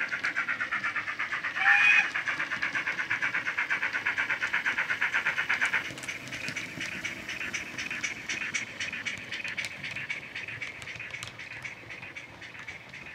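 Sound-fitted Hornby 42XX/52XX model GWR 2-8-0 tank engine: the DCC decoder's steam sound file plays through a small tablet speaker under the cab floor, beating out about four chuffs a second. A short whistle sounds about two seconds in. The chuffs drop in level about six seconds in and fade as the model runs past.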